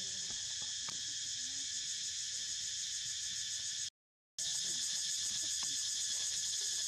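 Steady insect chorus, a dense high-pitched drone that cuts out completely for a moment about four seconds in.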